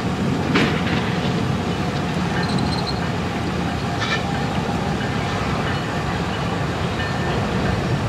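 Steady low rumbling noise, with a couple of faint clicks.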